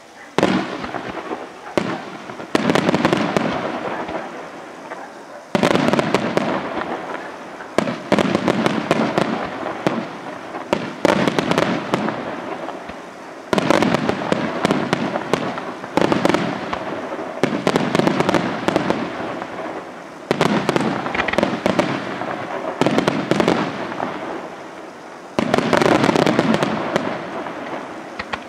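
Aerial fireworks shells bursting one after another, about every two to three seconds. Each loud burst is followed by a dense crackle that fades away.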